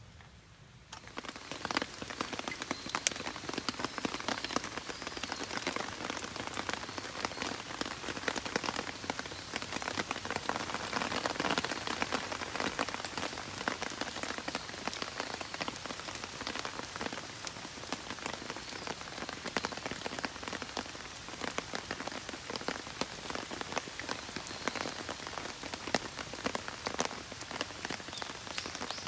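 Steady rain falling through trees, a dense patter of drops with many sharp close taps. It comes in suddenly about a second in.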